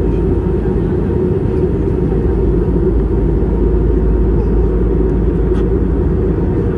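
Steady cabin noise of an Airbus A320-family airliner in cruise: a constant low rumble of engine and airflow noise heard inside the cabin at a window seat over the wing.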